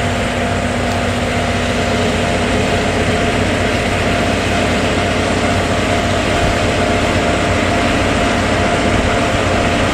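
JNR DE10 diesel-hydraulic locomotive's V12 diesel engine running steadily, a low hum with a few held tones.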